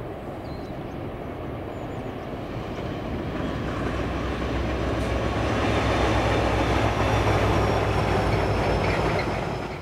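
Irish Rail 071 Class diesel locomotive, its EMD twelve-cylinder two-stroke engine running under load, growing steadily louder as it approaches and passes hauling a freight train. The wagons rumble along behind it.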